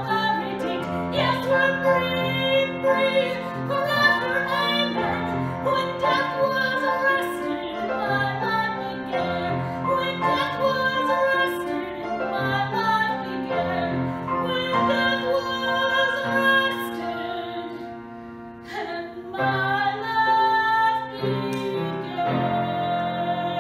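A woman singing a solo song in sustained phrases over instrumental accompaniment.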